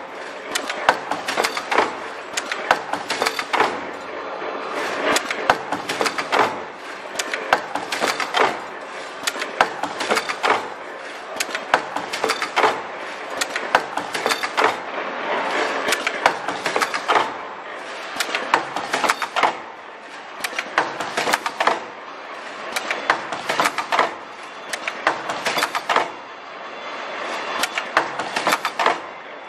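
A Richpeace automatic mask earloop welding machine running, giving a dense train of sharp mechanical clicks and clacks from its air-driven cylinders and cutters. The clatter comes in clusters that repeat every second or two as the machine cycles through each mask.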